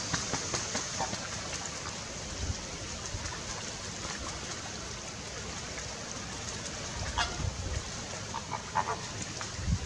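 Greater flamingos honking: a few short goose-like calls, the clearest about seven seconds in and another pair near the end, over splashing water from bathing birds.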